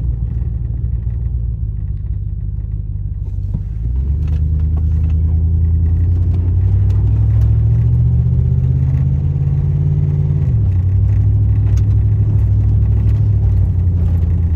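2003 Chevy Silverado's 5.3-litre V8 running through a Thrush Hush Turbo muffler, heard from inside the cab while driving. A low, steady exhaust drone rises as the truck accelerates from about four seconds in, climbs gradually, then drops sharply at an upshift about ten seconds in and settles into a steady cruise.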